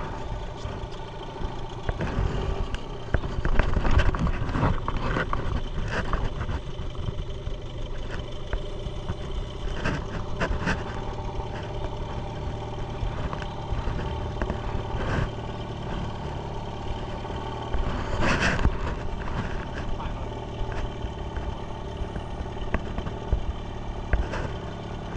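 Outboard motor of a small flood-rescue boat running steadily, with a few short knocks over it.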